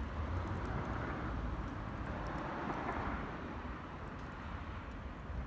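Outdoor traffic noise: a vehicle going by, swelling about halfway through and then fading, over a low uneven rumble.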